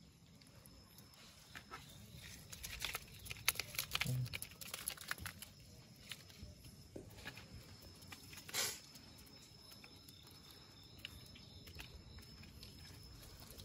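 Hands picking through a wet mesh net trap full of river shrimp: scattered light rustles, crackles and small wet clicks, with one louder rustle about eight and a half seconds in.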